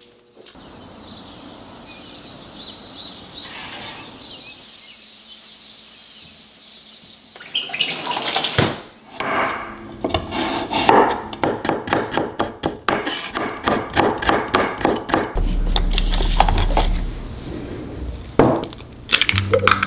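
Birds chirping, then about eight seconds in a chef's knife chopping carrot on a bamboo cutting board in a quick, steady series of chops. Music with low bass notes comes in near the end.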